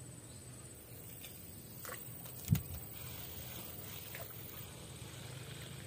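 Handling noise while a fishing rod is moved about: a faint tap and then one sharper knock about two and a half seconds in, over a low steady hum.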